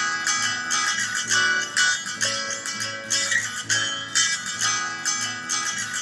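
Background music: a plucked guitar playing a steady run of notes.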